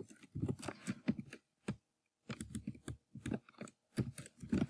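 Typing on a computer keyboard: quick bursts of keystrokes with short pauses between them.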